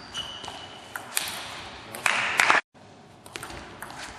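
Table tennis rally: a series of sharp clicks as the celluloid ball is struck by rubber-faced bats and bounces on the table. About two seconds in there is a louder noisy burst that cuts off abruptly.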